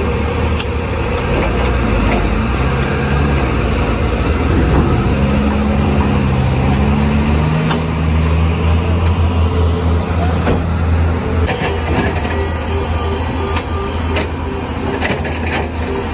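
Heavy diesel engines of a 14-wheeler tipper truck stuck in fly ash and a tracked excavator running close by, a steady deep rumble whose engine note rises and falls in the middle. A few sharp metallic knocks come near the end.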